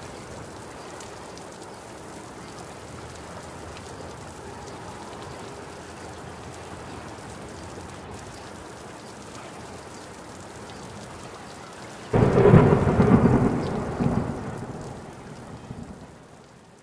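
Steady rain, then a sudden loud rumble of thunder about twelve seconds in that dies away over a few seconds.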